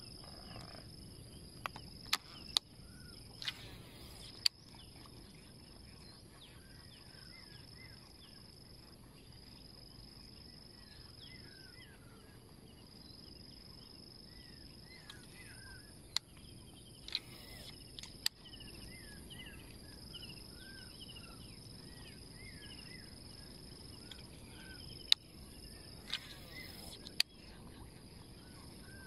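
Faint outdoor lakeside ambience: insects buzz in a steady, high, even tone while many short bird chirps come and go over it. A dozen or so sharp clicks or knocks, the loudest sounds, are scattered through it.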